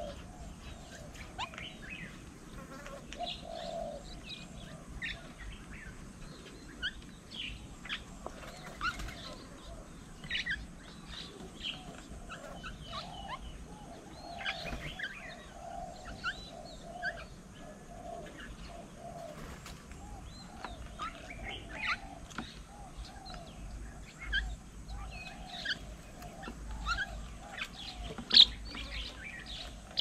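Many small birds chirping and calling at once, short high notes overlapping continuously, with a lower wavering call repeating underneath. A single sharp click stands out near the end.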